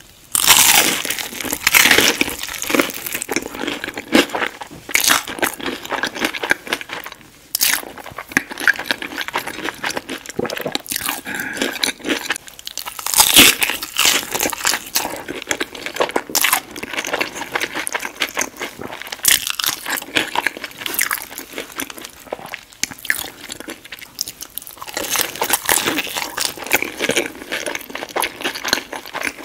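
Crispy battered fried fish bitten and chewed close to the microphone: dense, irregular crackling crunches throughout. The loudest bites come about half a second in and again near the middle.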